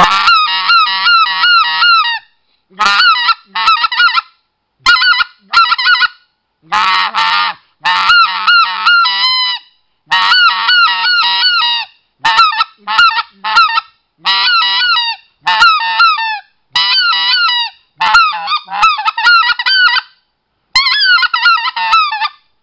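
RedBone specklebelly goose call blown in runs of quick honking notes, each note a fast rise and fall in pitch, the runs one to three seconds long with short pauses between. The call is played with both hands cupped around its end, a grip that shapes its tone.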